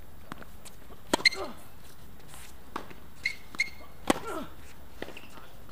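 Tennis rally on a hard court: sharp pops of the racket strings meeting the ball and the ball bouncing, the loudest hits about a second in and about four seconds in, with short high squeaks of sneakers between them.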